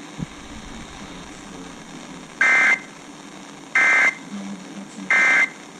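Three short buzzy bursts of digital data tones from a NOAA Weather Radio broadcast, about 1.3 seconds apart, over steady radio static. They are the EAS/SAME end-of-message code that signals the alert has finished.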